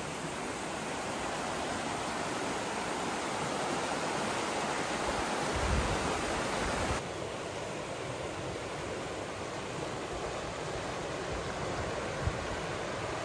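Steady rushing noise with no clear pitch, dropping a little in level about seven seconds in.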